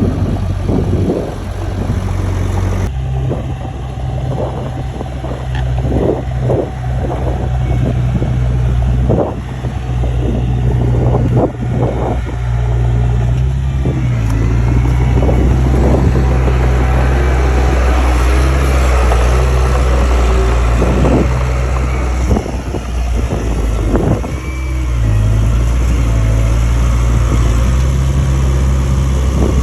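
Komatsu D31A bulldozer's diesel engine running steadily under load, with repeated short metallic clanks and knocks throughout, heaviest in the first half.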